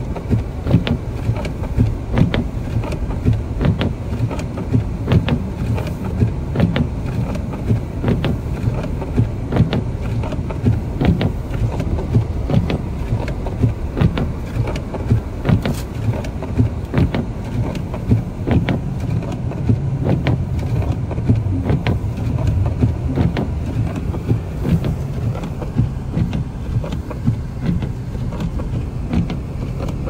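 Car driving through deep snow, heard from inside the cabin: a steady low rumble with frequent irregular knocks and thumps.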